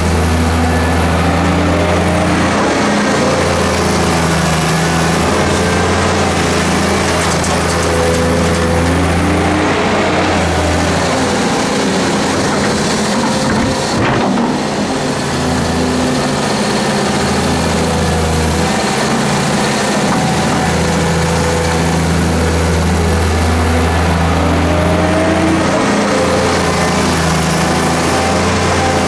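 Hyundai crawler excavator's diesel engine running steadily under load, its pitch shifting up and down as the hydraulics work the boom and bucket. A single sharp knock about halfway through.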